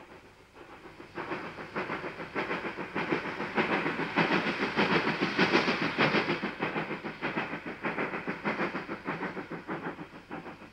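Steam tank locomotive working a train past, its exhaust chuffing in a quick, even rhythm that builds up, is loudest about midway, and fades away.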